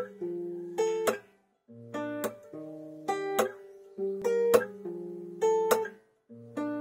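Instrumental song intro on acoustic guitar: chords struck and left to ring in a repeating pattern of paired strums about every second and a quarter, with no singing yet.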